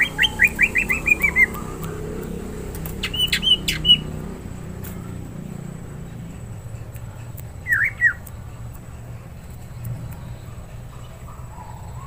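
Greater green leafbird (cucak hijau) calling in its cage: a quick run of about eight falling chirps at the start, a few sharper notes with clicks around three to four seconds in, and a short pair of notes near eight seconds.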